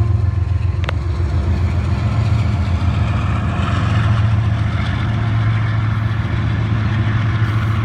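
Several CSX diesel-electric freight locomotives running as the train passes slowly, with a steady low engine drone. There is one sharp click about a second in.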